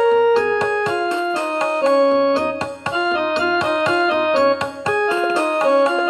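Piano playing a melody in the five-note Raag Bhupali, single notes struck one after another at a steady pace.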